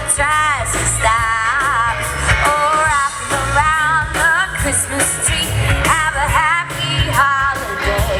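A pop song with a singing voice over a steady bass and drum beat.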